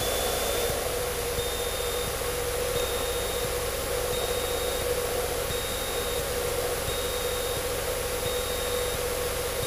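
Cessna 152's four-cylinder Lycoming engine droning steadily at reduced power, as picked up by the headset intercom. A faint high beep repeats at an even pace, roughly every second and a quarter.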